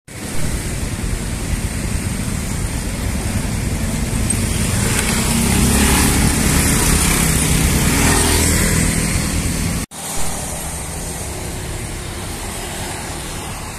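Road traffic, with an SUV driving past close by, its engine and tyres loudest about six to nine seconds in. After a sudden cut near ten seconds, quieter, steady traffic.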